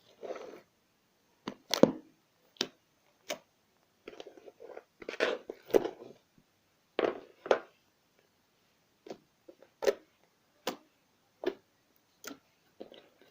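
Slime being squeezed and poked by hand, giving irregular sharp pops and short wet squelches, with a busier stretch of squishing in the middle.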